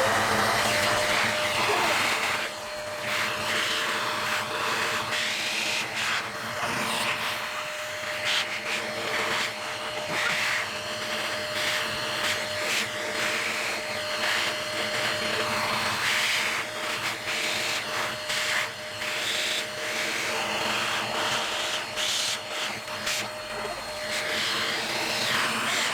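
Vacuum cleaner with a small nozzle tip attached, running steadily: a constant motor tone under a suction hiss that swells and dips as the nozzle is worked over a grooming brush.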